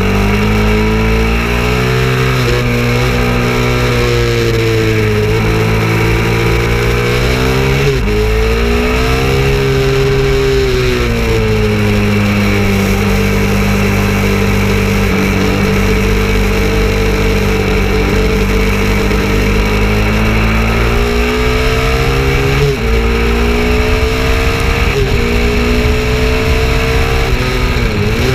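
KTM 690 Duke's single-cylinder engine under hard riding, its revs rising and falling several times as it is worked through the gears, over a steady rush of wind.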